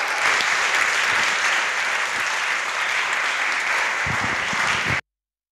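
Audience applauding steadily, cut off abruptly about five seconds in.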